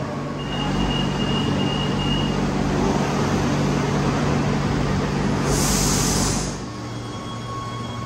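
CAF S/300 metro train pulling out of an underground station: wheels and running gear rumbling as it gathers speed, with a thin steady whine in the first couple of seconds and a short hiss about six seconds in. Shortly after, the loud running noise drops suddenly to a quieter steady hum with faint high tones.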